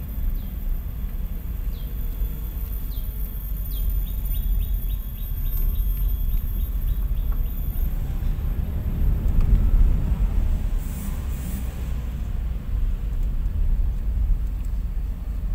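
Steady low rumble of a car's engine and tyres, heard from inside the cabin while driving on a narrow paved road, swelling briefly about ten seconds in. A run of quick, high chirps sounds over it in the first half, coming about four a second after the first few.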